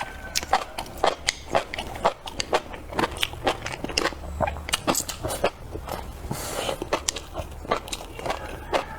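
A person chewing and biting food close to the microphone: a steady run of sharp, wet clicks, two or three a second, with a brief hiss about six and a half seconds in.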